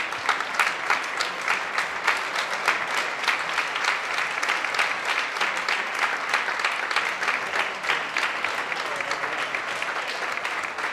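Audience applauding steadily, a dense run of many hands clapping that eases slightly near the end.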